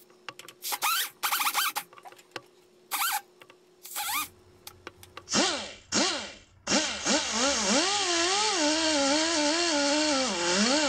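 Die grinder with a blue abrasive disc scuffing base-gasket residue off the aluminium cylinder mating surface of a Kawasaki KLX140 crankcase. It gives about five short bursts, each whining up in pitch, then from about two-thirds in runs continuously with a hiss, its whine wavering as the disc is pressed onto the surface.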